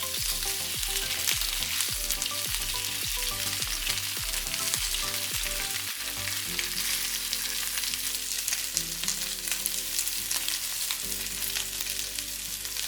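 Marinated chicken pieces frying in hot cooking oil in a pan, a steady sizzle.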